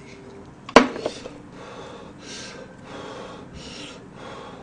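A sharp knock of a wooden spoon against a bowl about a second in, then about four breathy slurps of hot brown-rice nurungji soup close to the microphone.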